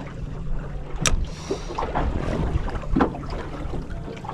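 Choppy water slapping against the hull of a small boat, with a sharp knock about a second in and scattered smaller knocks and splashes.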